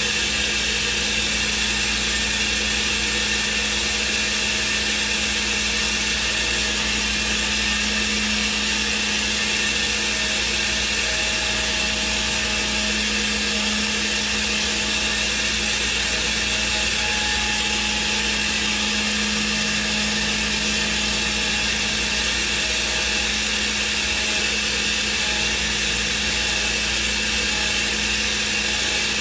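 Thermwood CNC router running steadily, a constant high machine whine over a low hum with no change in level.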